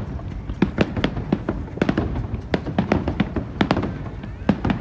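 Aerial firework shells bursting in quick, irregular succession: many sharp bangs and crackles, several a second, over a low rumble.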